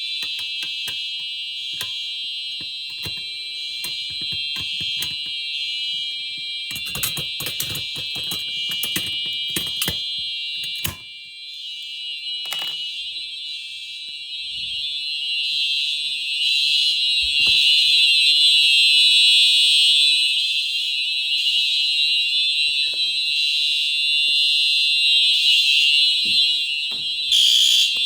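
Fire alarm horns of a test system sounding together in a steady, high-pitched continuous tone after a pull station is pulled. A cluster of clicks and knocks comes near the middle, and the alarm gets louder in the second half.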